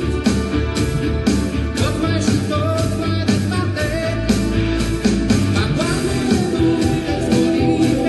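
Background rock music with guitar, a steady drum beat and singing.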